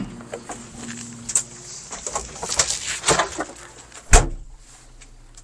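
Kioti CK3510 SE tractor cab door latch clicking open, then knocks and scuffs as someone climbs up the step into the cab. The cab door slams shut about four seconds in, the loudest sound.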